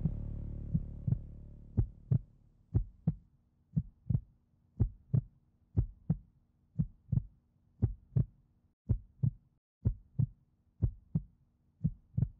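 Music fades out over the first two seconds, leaving a heartbeat: paired lub-dub thumps about once a second, over a faint low hum that drops out about three seconds before the end.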